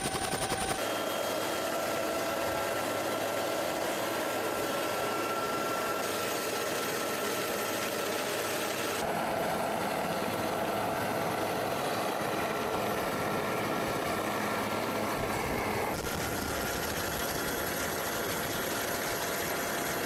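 Steady engine noise of the aircraft carrying the camera, its character changing slightly several times.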